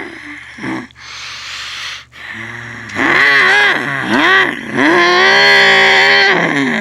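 Monster truck's supercharged V8 engine being revved hard: the throttle drops off at first, then from about three seconds in it revs up and down in quick blips before holding high and falling away near the end.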